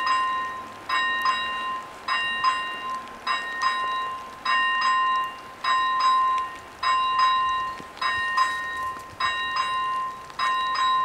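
AŽD 97 level crossing warning bells ringing, struck in pairs a little over a second apart, each ring fading before the next pair. The crossing is in warning mode for an approaching train.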